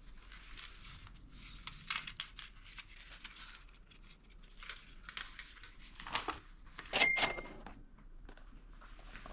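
Plastic packaging crinkling and tearing as it is handled and opened, in scattered rustles, with a louder sharp crackle about seven seconds in.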